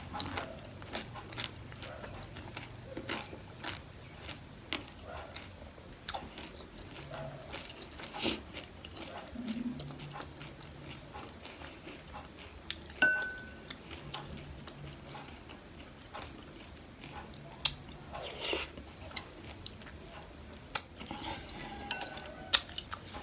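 A person eating close to the microphone: chewing, with scattered small crunches and clicks. Several sharp louder clicks come in the second half.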